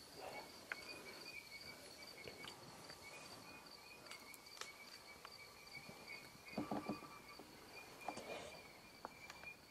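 Faint night insects trilling steadily at two high pitches. A brief cluster of low knocks comes about two-thirds through.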